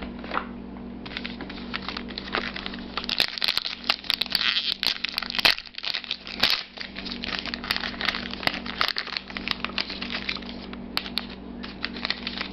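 An Allen & Ginter baseball card pack wrapper being torn open and crumpled in the hands: a dense crackling and crinkling, thickest in the middle few seconds, as the cards are slid out.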